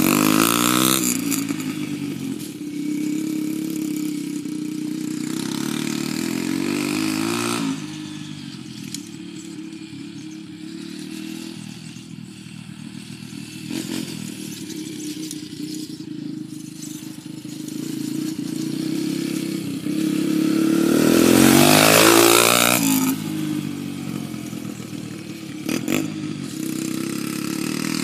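Yamaha TT-R125 dirt bike's single-cylinder four-stroke engine, through a custom exhaust, revving up and down through the gears as the bike rides off across the field. It fades while the bike is far off, swells loudest about 21 to 23 seconds in, with its pitch quickly rising and falling as it comes near, then drops back.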